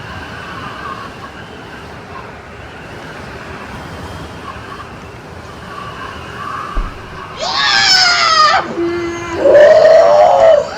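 A steady hiss, then two loud, high-pitched screams about seven and a half and nine and a half seconds in, each sliding in pitch.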